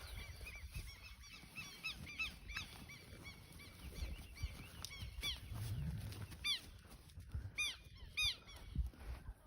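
Birds calling: many short, arched chirps repeated in quick runs, thickest in the second half, over a low rumble of background noise.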